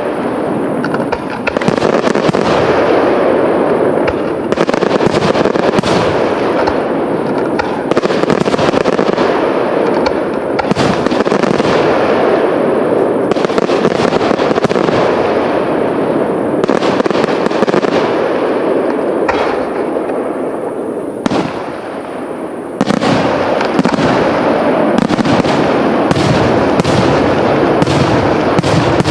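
Aerial fireworks display: a continuous wash of bursting and crackling with many sharp bangs over it, the bangs coming thick and fast in the last few seconds.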